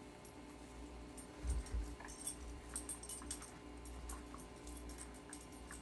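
Faint, irregular metallic jingling, like a German Shepherd's collar tags, as the dog moves about and noses at its socked feet, with a couple of soft thumps about a second and a half in.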